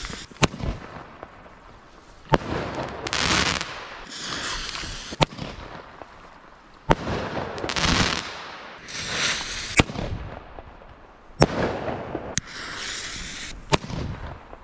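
Lidl Skyshot tube fireworks going off one after another: a series of sharp bangs, the loudest about every four to five seconds, each followed by a short hissing spray as the glittering effect bursts.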